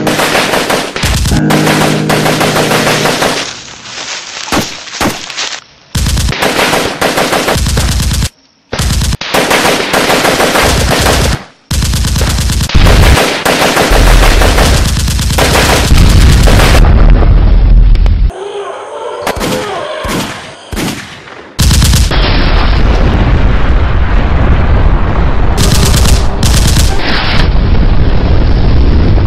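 Rapid automatic gunfire in long bursts separated by short breaks, with a deep rumble about halfway through and unbroken firing through the last several seconds.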